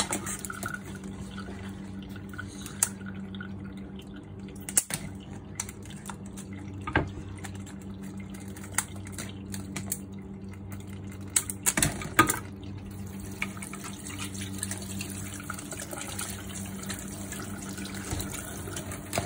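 Crabs being handled in a stainless steel sink, their shells knocking and clacking against the steel now and then, loudest about twelve seconds in. About two-thirds of the way through, the kitchen tap comes on and water runs into the sink.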